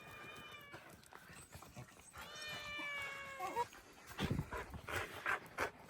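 A puppy whining: one short high-pitched whine at the start and a longer, steady, slightly falling whine in the middle, followed by a few faint soft knocks.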